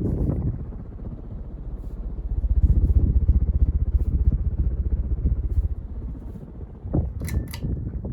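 Casablanca Delta II ceiling fan running on high speed, its draft hitting the microphone as a pulsing low rumble, with a plastic bag blown about by the fan crackling briefly near the end.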